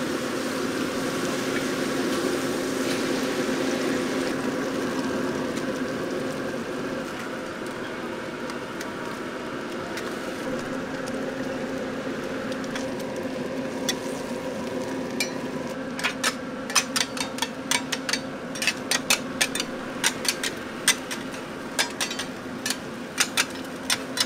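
Oyster omelettes sizzling on a large round iron griddle, under a steady hum. In the second half a metal spatula strikes and scrapes the griddle again and again in quick, sharp clacks.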